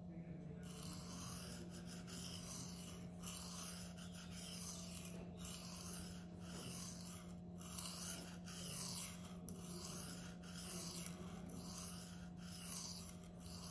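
Steel knife blade of a Twosun TS265 stroked with light pressure along a Venev resin-bonded sharpening stone, a soft scraping swish about once a second, stroke after stroke. The edge is being worked on one side to raise a burr.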